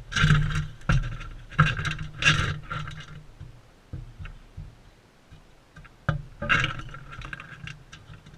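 Crimson rosellas feeding right at the camera: loud scraping, knocking and clicking of beaks and feet on the seed tray. It comes in two bouts, the first about three seconds long, the second a little past the middle.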